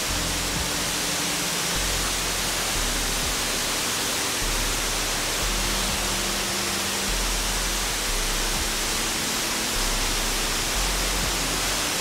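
Tall waterfall crashing down a cliff, heard as a steady, even rush of falling water.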